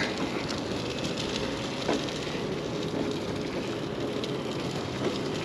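Electric mobility scooter rolling along a concrete sidewalk: a steady rolling noise with a faint hum and a few light knocks.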